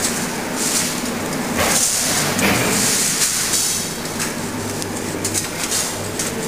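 Factory-hall machinery noise: a steady low hum, with a strong hiss rising about a second and a half in and lasting about two seconds.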